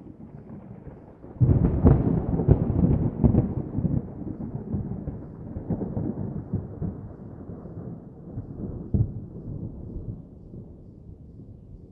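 Strong wind buffeting a camera's built-in microphone: a low, gusty rumble that jumps up suddenly about a second and a half in, then slowly dies down.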